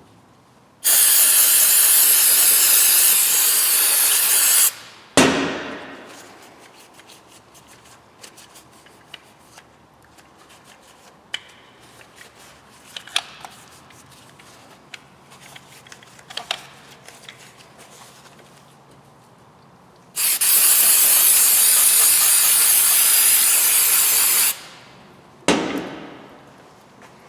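Aerosol cleaner sprayed onto a dirty throttle body in two loud hissing bursts of about four seconds each, the second coming about fifteen seconds after the first. Light clicks of handling fall in between, with a sharp knock just after each burst.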